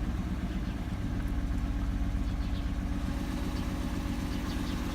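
Mercedes-Benz W124's engine idling steadily and evenly, with no shake at this moment; its intermittent rough idle was traced to a faulty wiring harness.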